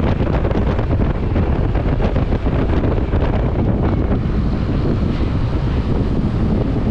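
Wind buffeting the microphone: a steady rumble with no speech.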